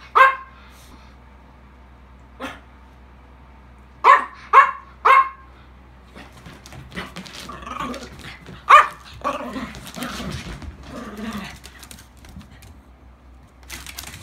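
An English bulldog and a miniature pinscher play-fighting: sharp barks, with a quick run of three about four seconds in, then rough play growling and scuffling for several seconds.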